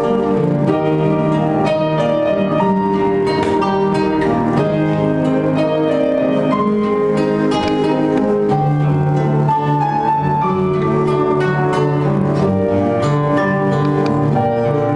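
Live instrumental music: plucked strings playing a melody over held low notes.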